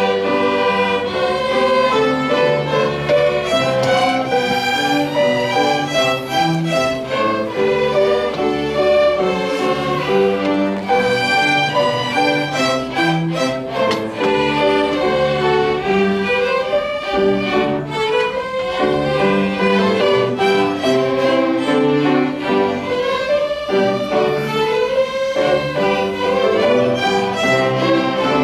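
Instrumental music with a melody on bowed strings over a lower string accompaniment, playing continuously.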